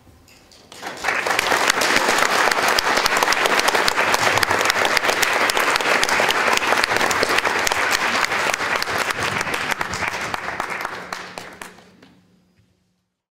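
Audience applauding: the clapping starts about a second in, holds steady, then dies away near the end.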